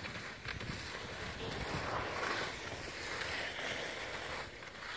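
Wind on the microphone: a steady rushing noise, with a slight swell around the middle.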